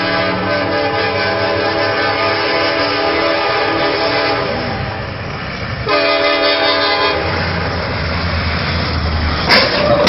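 Locomotive air horn sounding a long blast, fading out about four and a half seconds in, then a second shorter blast, followed by the low rumble of the approaching train. Near the end a sudden loud crash as the train strikes a semi-truck's trailer across the crossing.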